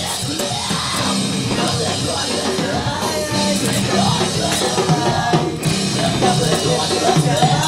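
Rock music with a drum kit and singing, playing loud and steady.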